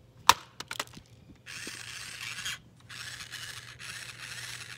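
A sharp knock with a couple of small clicks, then harsh scraping in three stretches of about a second each as the broken plastic toy car is worked apart by hand.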